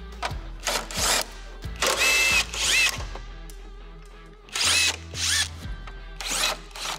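Cordless power driver with a socket extension spinning bolts out of a car's front support panel, in several short bursts of motor whine, some rising in pitch.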